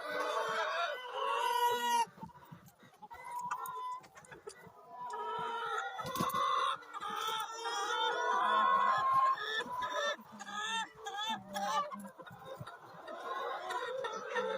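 A flock of free-range village chickens clucking and calling over one another, with a rooster crowing in long held calls around the middle.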